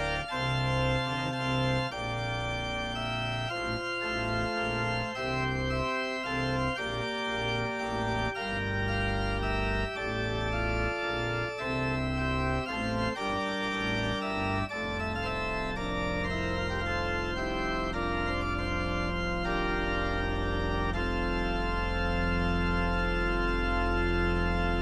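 Pipe organ playing a chorale partita: full chords over a deep pedal bass, moving steadily until about fifteen seconds in, then a long held final chord.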